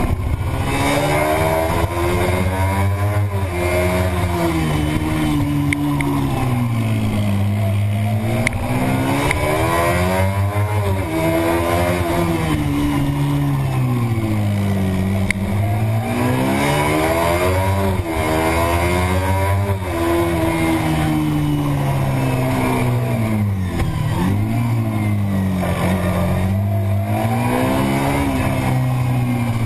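Road-racing motorcycle engine at racing speed, its pitch climbing hard then falling back again and again as the rider accelerates out of corners and slows for the next, with wind rushing over the microphone.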